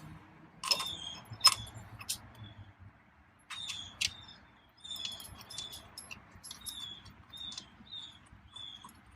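Hand ratchet and socket clicking in short bursts with pauses, metal ticks ringing briefly, as a steering-hub bolt is run in and tightened. A few louder metal knocks in the first two seconds.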